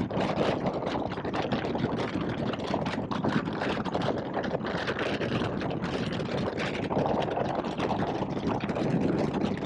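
2021 Indian Scout Bobber's V-twin engine running steadily at road speed, mixed with wind and road noise.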